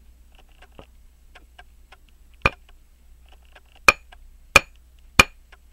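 Back end of a hammer tapping a staking-tool punch that sits on a pocket watch hairspring collet: four light, sharp metallic clinks, the first about two and a half seconds in and three more in quicker succession, with faint small clicks between. The taps squeeze the collet's gap closed to tighten a loose collet.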